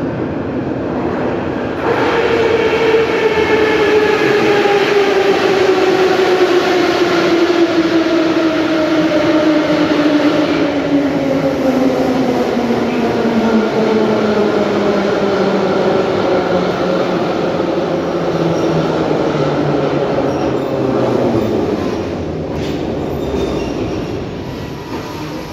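81-717.5M/714.5M 'Nomernoy' metro train arriving at a station platform. A loud rush of wheels on rails begins about two seconds in, with a traction-motor whine that falls steadily in pitch for some twenty seconds as the train brakes. It fades as the train draws to a stop near the end.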